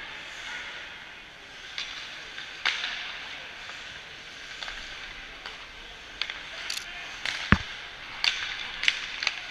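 Ice hockey arena sound: a steady crowd murmur with scattered sharp clacks of sticks and puck, and one louder knock a little after the middle.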